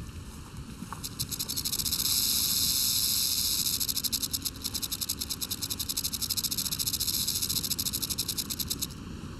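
Prairie rattlesnake shaking its tail rattle: a high, dry, rapid buzz that starts about a second in and cuts off shortly before the end. It is the snake's warning signal.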